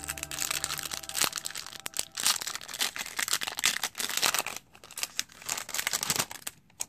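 Foil wrapper of a Pokémon Sun & Moon booster pack crinkling and tearing as it is ripped open by hand, in uneven bursts of crackle with a brief lull about four and a half seconds in.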